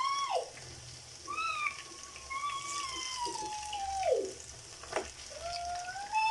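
Pakoras frying in hot oil, a steady sizzle with scattered pops. Over it come long, high, wavering cries, each lasting a second or more and sliding down in pitch at the end, one after another; these are louder than the frying.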